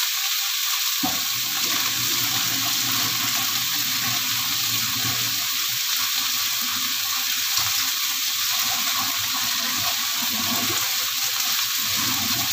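Cassava and papaya leaves sizzling as they stir-fry in a wok, a steady hiss, with a lower rumble coming in about a second in.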